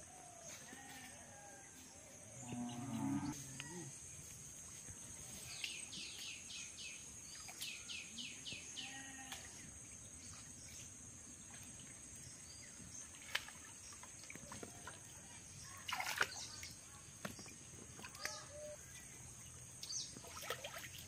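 Rural outdoor ambience: a steady high-pitched drone throughout, with a low, drawn-out animal call about two and a half seconds in and a quick run of bird chirps about six seconds in.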